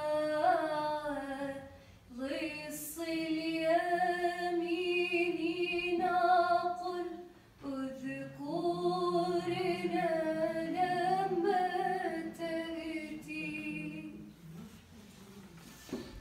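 A woman singing a slow, unaccompanied devotional hymn in three long drawn-out phrases with held, wavering notes.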